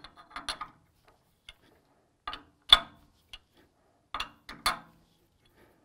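Sharp metallic clicks and knocks, a few at a time, as a T-handle key engages and turns the cam locks on a lathe's camlock spindle nose, checking each lock is tight. The loudest knock comes about three seconds in.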